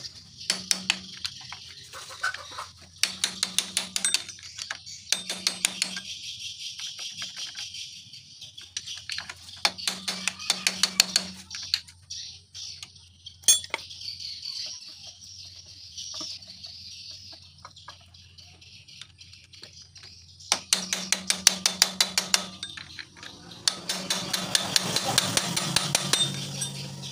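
Bursts of rapid metal-on-metal tapping as a motorcycle clutch centre nut is struck to tighten it, each run lasting a second or two and repeating several times.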